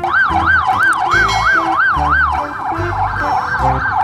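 Police car siren wailing in quick up-and-down sweeps, about three a second, growing fainter a little past halfway, over background music with a steady beat.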